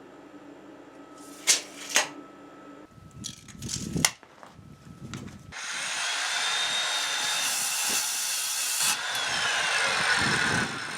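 A few sharp clicks and knocks, then a handheld power tool runs for about five seconds with a loud, high whine that drops in pitch near the end as the motor comes under load.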